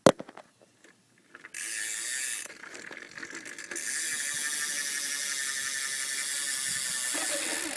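BMX rear hub ticking fast and steadily as the back wheel is spun and freewheels, the pawls buzzing against the ratchet. It runs for about a second, fades, then starts again about four seconds in and holds steady until nearly the end.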